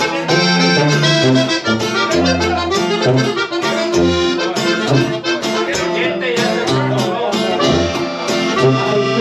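Live band playing a lively Mexican regional dance tune, an accordion carrying the melody over guitar and a bouncing bass line.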